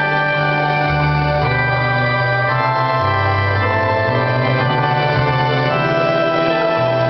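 Electronic keyboard played with an organ voice: slow, sustained hymn chords over a bass line that steps to a new note about every second.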